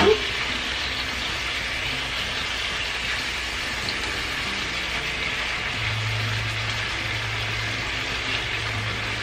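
Chicken pieces and garlic sizzling steadily in hot oil in a frying pan. A low hum joins about six seconds in.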